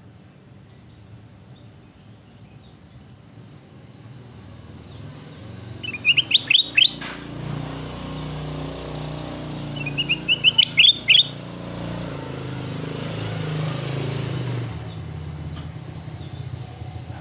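Kutilang emas bulbul singing two short phrases, each a quick run of rising whistled notes, about four seconds apart. A low rumble swells and fades behind them.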